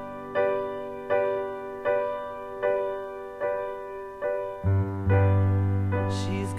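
Piano playing a slow ballad introduction: chords struck about every three-quarters of a second, with deeper bass notes coming in about two-thirds of the way through.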